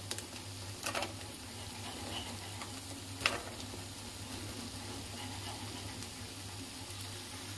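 Crispy fried corn kernels tipped into a hot pan of sautéed vegetables and sauces, sizzling steadily, with a few sharp clicks against the pan, the loudest a little past three seconds in.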